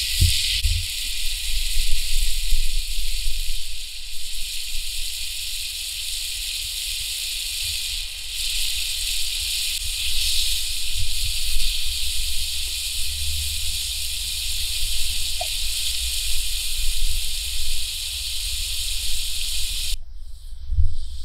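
Chunks of meat sizzling in hot fat in a wide steel pan over a wood fire: a steady high hiss, with a low rumble underneath. The sizzle cuts off suddenly near the end.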